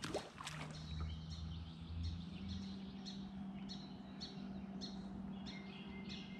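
Small birds chirping over and over above a steady low engine drone from jet skis out on the lake, the drone's pitch stepping up a little about two and a half seconds in. A brief sharp sound comes right at the start.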